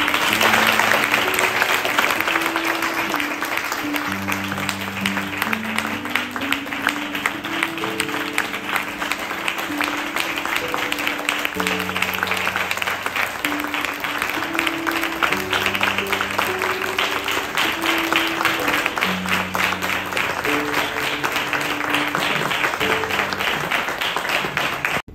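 Audience applauding steadily over slow instrumental music of long held notes.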